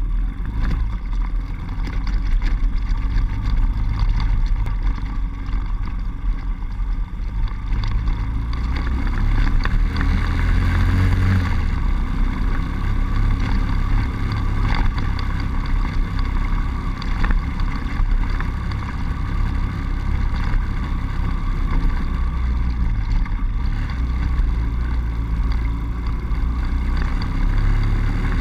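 Honda Dax 70cc's small single-cylinder four-stroke engine running steadily as the minibike rides along.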